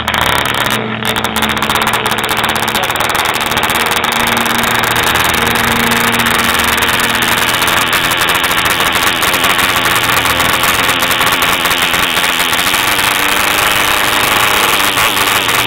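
Small model airplane engine running steadily and loudly, its propeller spinning.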